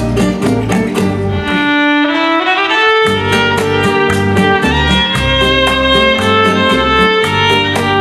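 Electric violin playing a melody over a backing track with a steady beat and bass. About a second and a half in, the beat drops out and the violin holds a note that slides upward; the beat comes back at about three seconds.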